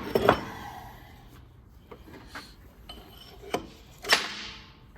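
Hammer tapping a part out of a Ford 9-inch differential carrier from the back side: several sharp metal-on-metal taps, two quick ones at the start and a harder one about four seconds in that leaves a short ringing tone.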